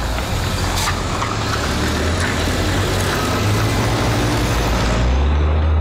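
A motor vehicle's engine running just after starting, its low hum shifting in pitch and growing louder near the end as the vehicle sets off, with a single knock about a second in.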